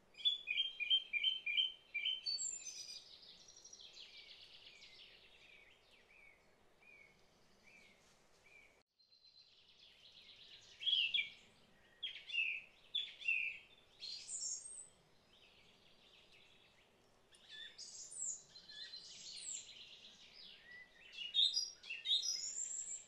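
Small songbirds chirping and singing: a quick run of evenly repeated high chirps at first, then assorted short calls and phrases, over a faint steady background hiss.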